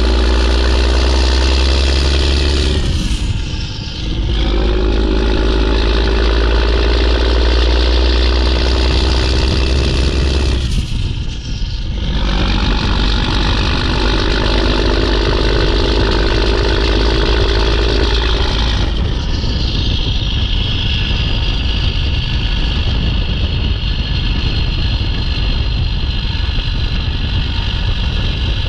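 Mack E7 inline-six turbo diesel in a CH612 truck working hard, with two short breaks in power about 3 and 11 seconds in as gears are shifted, the turbo whistle dropping in pitch at each. About 19 seconds in the throttle is let off and the loud turbo whistle winds slowly down in pitch over the engine.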